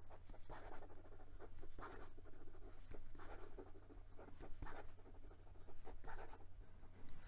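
Pilot Custom 74 fountain pen's rhodium-plated 14k gold nib scratching across notebook paper in a run of quick cursive strokes, writing the same word over and over.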